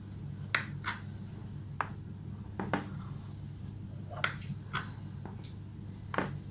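Kitchen knife slicing through a chilled pumpkin biscuit cake in a baking dish: several short scrapes and clicks, roughly a second apart, as the blade presses through and meets the dish. A steady low hum runs underneath.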